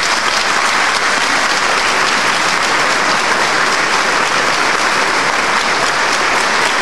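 Steady applause from the legislators in the chamber, many hands clapping at once.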